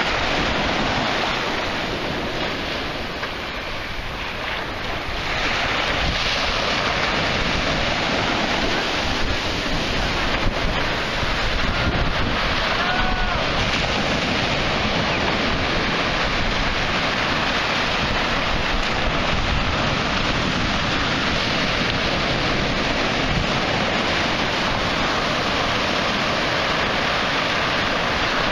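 Sea surf breaking and washing on a beach, with wind buffeting the microphone; a steady rush that grows a little louder about five seconds in.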